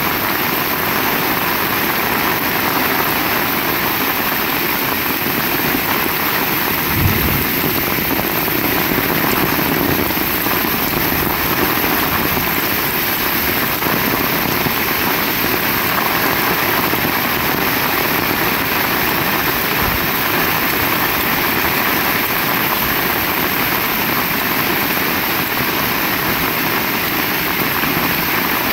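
Heavy rain falling steadily, a dense even hiss, with one brief low thump about seven seconds in.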